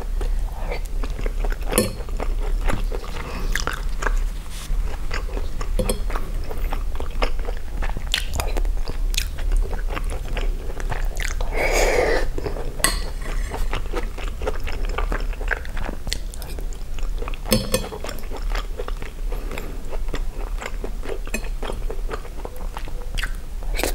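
Close-miked chewing of spaghetti with sausage and tomato sauce: soft wet mouth clicks and squelches throughout, with one longer, louder mouth sound near the middle. A metal fork touches the plate near the end.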